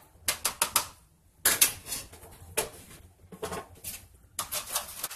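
Metal fork beating a thin liquid dressing in a small plastic container, rapid clicking and tapping against the container in four quick bursts with short pauses between.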